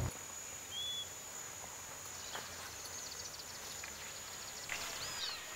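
Outdoor nature ambience: a steady, high-pitched insect drone, with scattered bird calls, a short whistle about a second in and a few quick gliding notes near the end.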